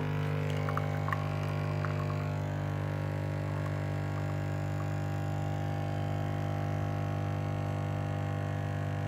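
Lavazza Jolie capsule coffee machine's pump running with a steady, loud hum, switched on by itself without the button being pressed. The owner takes this for a fault in the machine he can't explain.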